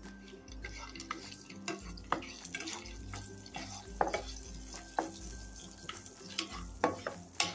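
Cashews being stirred as they roast in hot ghee in a pan: a light sizzle with a spoon scraping and knocking against the pan every second or so.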